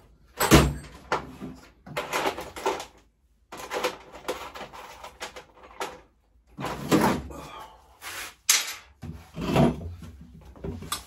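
Small metal parts and hand tools being handled on a workbench while washers are fitted to a bolt: irregular knocks, clinks and rummaging, in several clusters with short pauses between.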